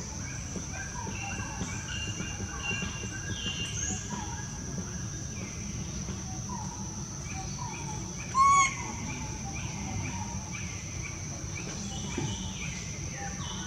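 Small birds chirping and twittering over a steady high-pitched whine, with one short, loud pitched call about eight and a half seconds in.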